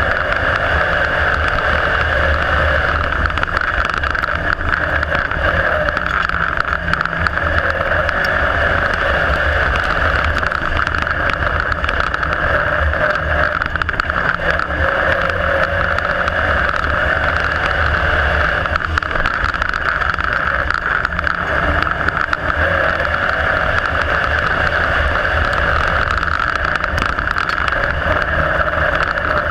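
IMCA Modified dirt-track race car's V8 engine running hard at racing speed, heard from inside the cockpit. The sound is loud and steady, with only small shifts in pitch.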